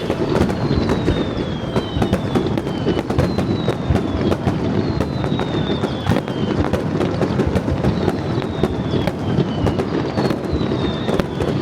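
Fireworks display: a dense, unbroken crackle of many small bursts, with a short falling whistle repeating about once a second.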